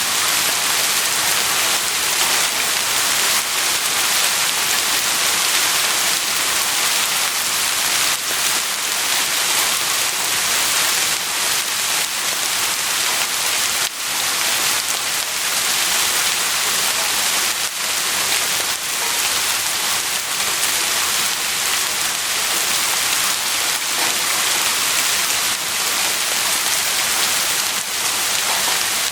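Heavy rain falling steadily, a dense even hiss with scattered individual drops ticking.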